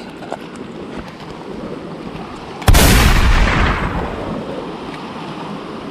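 Ocean surf washing against shoreline rocks, with one wave crashing hard on the rocks about two and a half seconds in, very loud and sudden, then hissing away over a second or so.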